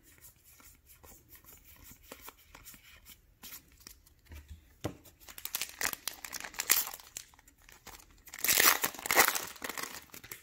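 Foil wrapper of a Magic: The Gathering booster pack crinkling and tearing as the pack is handled and opened. Light rustles and clicks at first, then louder crinkling about halfway through and again near the end.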